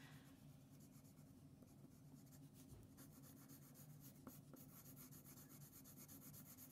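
Faint, quick scratching of a colored pencil shading on paper.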